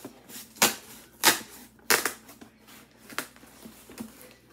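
Packing tape being ripped off a cardboard shipping box in about four short, sharp tearing pulls, with cardboard rustling and scraping between them.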